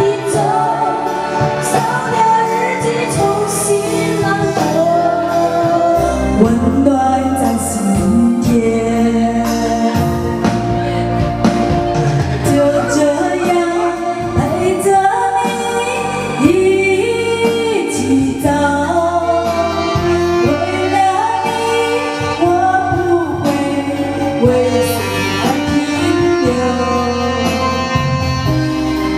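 A woman singing a Chinese pop love song into a karaoke microphone over a backing track. A steady bass line comes in about six seconds in.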